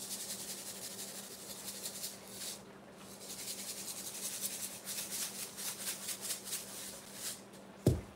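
Salt being shaken from a container over a cast-iron pan: a long run of fine, scratchy ticks, over a faint steady hum. A single dull thump near the end.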